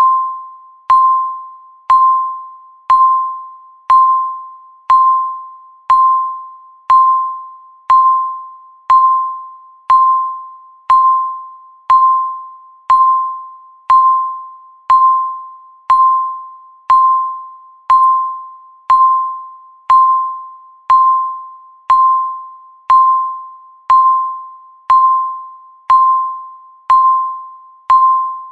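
Countdown timer's electronic beep sounding once a second, a single mid-pitched ringing tone that fades quickly after each strike, marking each second left on the count.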